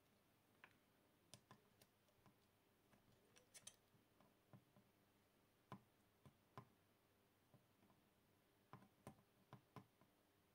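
Faint, irregular small clicks of metal tweezers and a soldering iron tip touching a metal coin-cell battery holder on a circuit board, over near silence.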